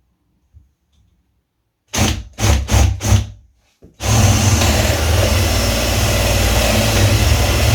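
Power drill with a 20 mm flat (spade) bit boring into the edge of a wooden door for a lock: four short bursts of the drill, then steady drilling from about four seconds in.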